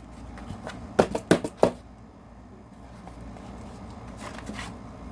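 Paper cards and packaging being handled: a quick cluster of about four crisp rustles and taps a second or so in, then faint handling noise.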